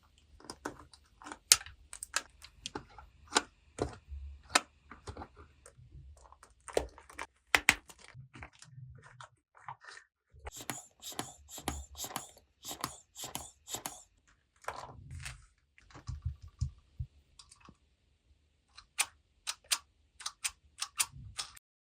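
Hard plastic toy pieces being handled, making a long run of irregular sharp clicks and taps, at times in quick flurries.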